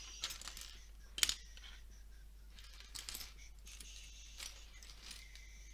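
Small hard plastic Lego pieces clicking and clattering as they are handled and sorted, in scattered clicks with the sharpest about a second in.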